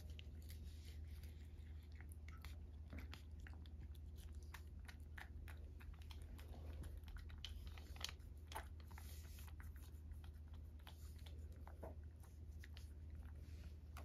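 A cat licking Churu paste treat from a ceramic saucer: many small, irregular wet licking clicks and ticks, faint, over a steady low hum.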